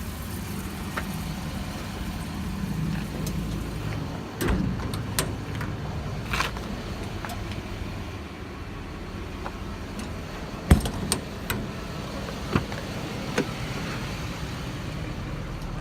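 An engine idling steadily, with scattered sharp metallic clicks and knocks over it; the loudest knock is about eleven seconds in.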